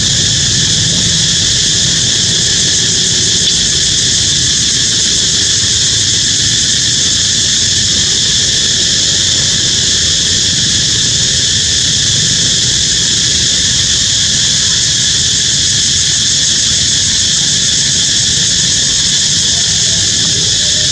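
Steady, loud, high-pitched wildlife drone that holds unchanged throughout, over a low rumble.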